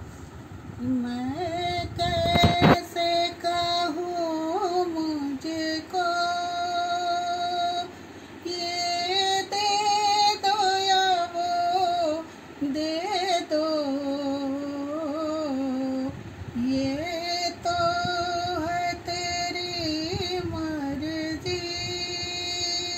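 A woman singing a Hindi devotional bhajan solo, without accompaniment, holding long notes and sliding between them. A short sharp knock about two and a half seconds in.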